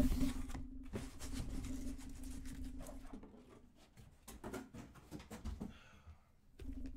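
Close handling noise, with light knocks and rustles of things being moved about on a table, over a low steady hum that fades after about three seconds.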